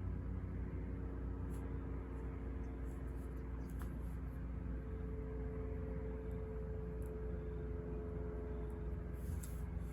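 Steady low ambient rumble with a faint hum, the white-noise background. A few faint, soft scratches sound over it, around four seconds in and again near the end.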